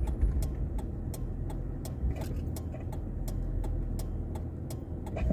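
Car's turn-signal indicator ticking steadily, about two to three ticks a second, over the low hum of the car idling, heard inside the cabin.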